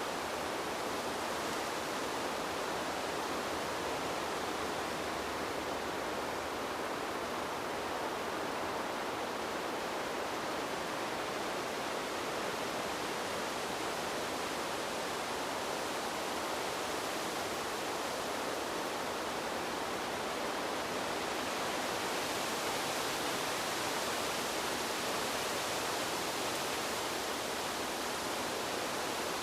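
Steady wind, an even rushing hiss with no distinct gusts, turning slightly brighter and hissier about two-thirds of the way through.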